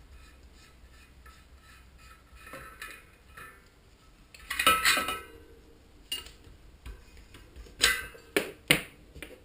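Small metal hub parts and hand tools being handled and set down on a workbench: faint ticking at first, a ringing metallic clatter about halfway through, then a few sharp knocks near the end.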